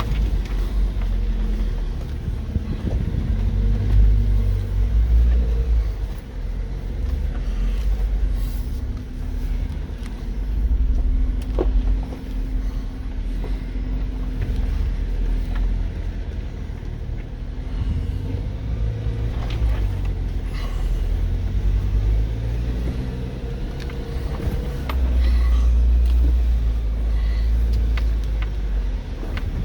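Jeep engine pulling at low speed as the Jeep crawls up a steep rock ledge. Its pitch rises and falls as the driver feeds in throttle, louder about four seconds in and again near the end, with a few light knocks.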